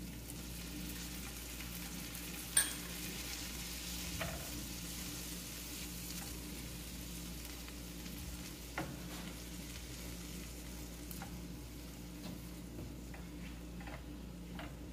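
Chopped onion and white wine sizzling in a frying pan as the wine reduces, stirred with a silicone spatula. A sharp clack about two and a half seconds in and a few lighter knocks.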